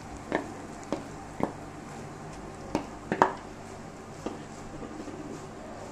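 A black spatula stirring grated coconut in ghee in a non-stick pan, knocking against the pan about seven times at uneven intervals, the loudest knock a little past three seconds in, over a faint low background.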